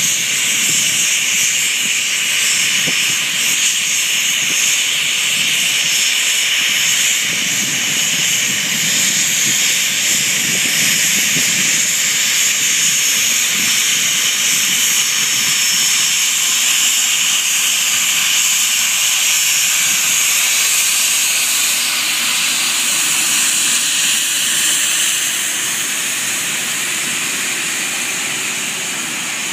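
Cessna Citation Mustang's twin Pratt & Whitney Canada PW615F turbofans at taxi power: a really loud, steady high-pitched whine and hiss. It eases slightly near the end as the jet turns away.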